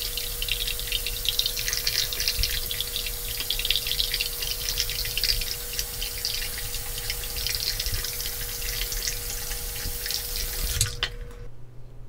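Harry's cartridge razor scraping through a full beard under shave cream in short strokes: a dense crackling rasp that stops near the end.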